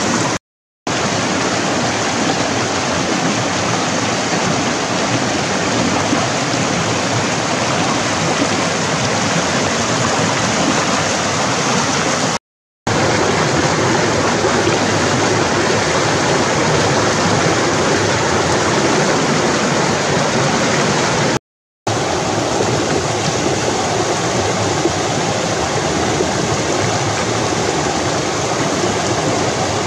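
Fast-flowing rocky stream rushing over stones and small cascades: a steady, loud rush of water. The sound cuts out completely for a moment three times.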